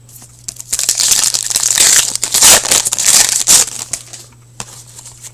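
Foil wrapper of a trading card pack being torn open and crumpled, a loud crinkling rustle lasting about three seconds, followed by light handling clicks.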